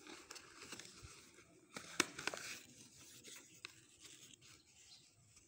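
Cardboard box being handled and opened, paperboard rustling and scraping as the inner box slides out, with a sharp click about two seconds in.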